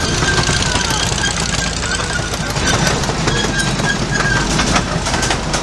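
Miniature amusement-park train running along its track: a steady engine-and-wheel rumble, with a faint high tone coming and going.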